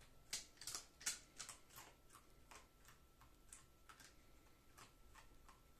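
Faint, irregular scratchy clicks and rustles of a red fox rummaging with nose and paws in pillows and bedding, a dozen or so, busiest in the first second and a half, over near-silent room tone.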